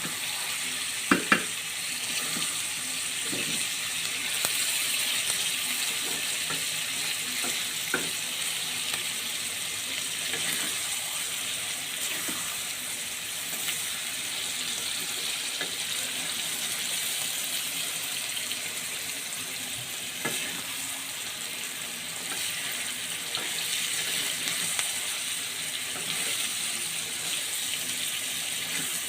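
Food frying in a pan, a steady sizzle, with a few sharp knocks of a utensil against the pan, the loudest about a second in.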